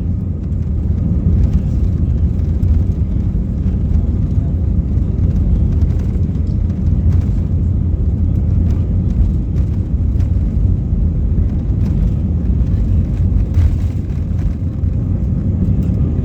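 Steady low rumble of an Airbus A320-200's engines heard inside the passenger cabin.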